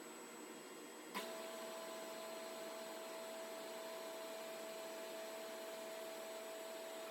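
Faint steady machine hum with a hiss. About a second in there is a single click, after which a steady pitched tone joins the hum and it gets a little louder.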